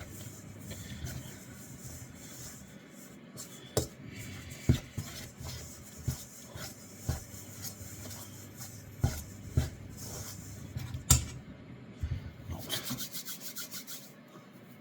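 A fork stirring and scraping dumpling dough in a mixing bowl, with a scattering of sharp taps against the bowl and a quick run of strokes near the end.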